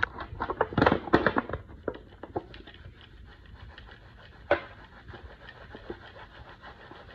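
Aluminium foil pan crinkling and clicking as a fish fillet is pressed and turned in dry batter mix: a run of crackles in the first couple of seconds, one sharp click about four and a half seconds in, then faint rustling.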